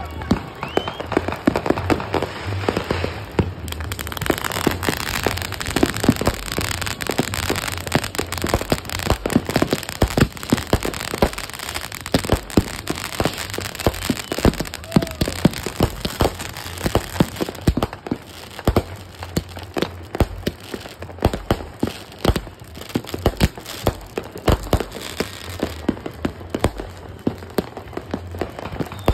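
Ground fountain firework spraying sparks, crackling: a dense, irregular stream of sharp pops, many a second.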